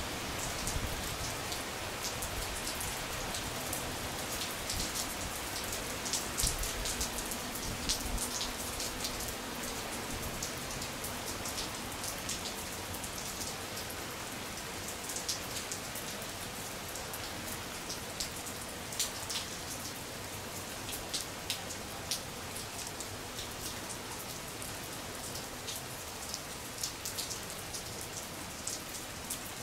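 Steady rain falling on a patio: an even hiss with many sharp ticks of single drops striking the surface.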